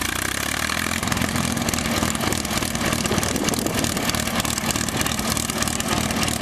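P-51D Mustang's Packard Merlin V-12 engine running steadily just after start-up, a rapid, even exhaust crackle over a steady low drone.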